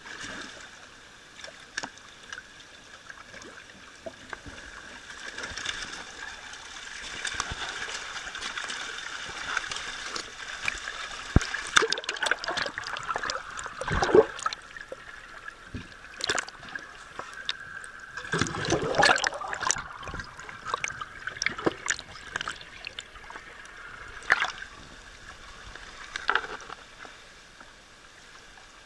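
Yellowtail kingfish splashing and slapping at the water surface of a culture tank in a feeding frenzy, the splashes coming thick and irregular and loudest in two flurries in the middle. Under them runs a steady rush of trickling water.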